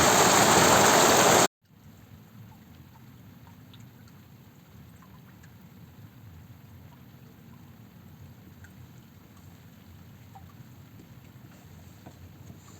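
Heavy rain pouring loudly, which cuts off abruptly about a second and a half in. What follows is a much quieter low rumble with scattered faint drips.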